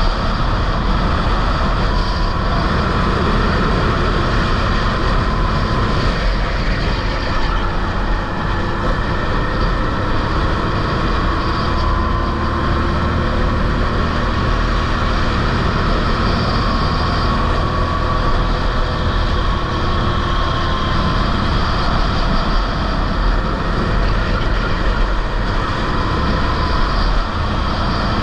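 Rental go-kart engine running at racing speed, its note rising and falling gently as the kart laps, under a heavy, steady rumble of wind on the onboard camera's microphone.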